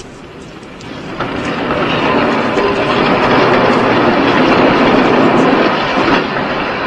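Tram running on its rails, a steady rumble with wheel noise that builds over the first two seconds and then holds loud, easing briefly about six seconds in.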